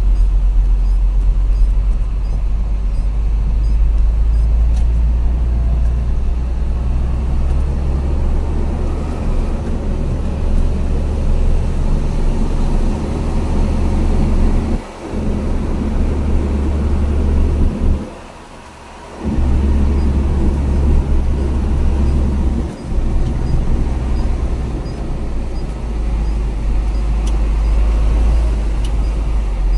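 Truck engine and road noise heard from inside the moving truck's cab: a steady low rumble. The sound drops out sharply three times around the middle, the longest for over a second.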